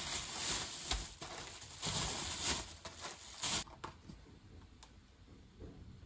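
Thin plastic bags crinkling and seed grain pattering as it is poured out of them, a rustling, crackling noise. A little over halfway through it stops, leaving a few light clicks of a clear plastic tray being handled.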